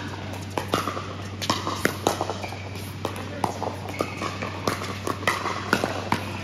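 Pickleball rally: sharp, irregular pops of paddles striking a plastic pickleball back and forth, mixed with footsteps on the court. A steady low hum runs underneath.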